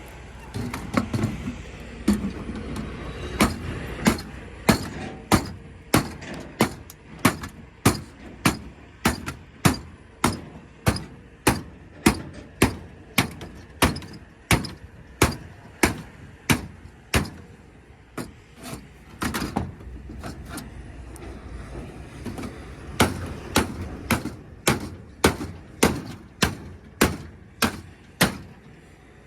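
Hand hammer striking the metal housing of an air-conditioner coil to break it open for the copper inside. The blows fall steadily, about two a second, in a long run, then a short pause with a few scattered knocks, then a second run near the end.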